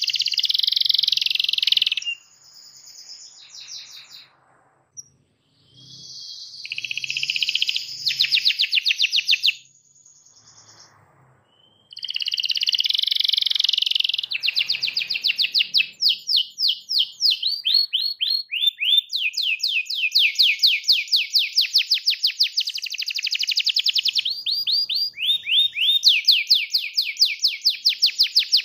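Canary singing: rolling trills of rapidly repeated high notes, broken by two short pauses in the first half, then long runs of quick sweeping notes repeated several times a second.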